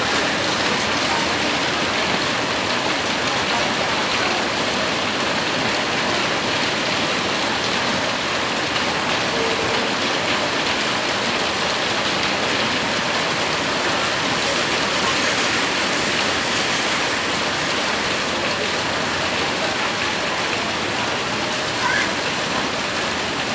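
Heavy rain pouring down in a storm, a steady dense hiss of rain hitting surfaces.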